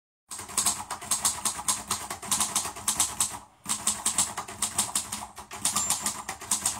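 Rapid rhythmic clicking like typing on a keyboard, an edited-in intro sound track, with a short break about halfway through.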